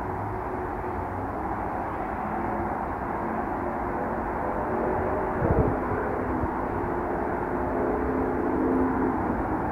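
Steady low, engine-like background rumble with drifting tones. A brief falling sweep with a low thump comes about five and a half seconds in.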